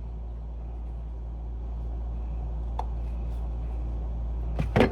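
Steady low hum under light handling noise as the chime's metal housing is wiped with a rag over a screwdriver: a faint click about three seconds in, then a brief burst of knocks and rubbing near the end.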